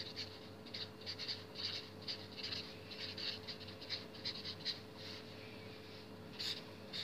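Felt-tip marker writing a word on paper: a quick run of short, faint scratchy strokes, thinning out about five seconds in, with one more pair of strokes near the end.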